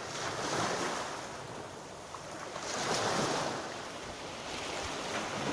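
Black Sea surf washing onto the shore, surging twice as waves break, most strongly about three seconds in.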